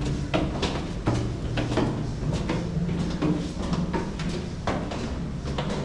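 Street ambience: irregular footsteps, clicks and knocks over a steady low hum.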